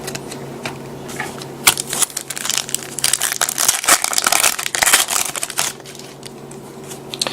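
Plastic trading-card pack wrapper crinkling and crackling as it is torn open and handled, thickest through the middle few seconds.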